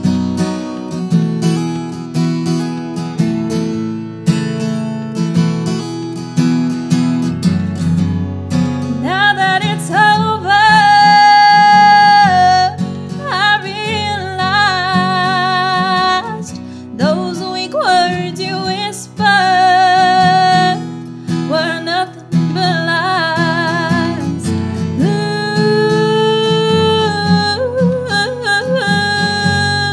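Acoustic guitar strummed alone, then about nine seconds in a woman's voice comes in singing a country song over the guitar, with wavering held notes.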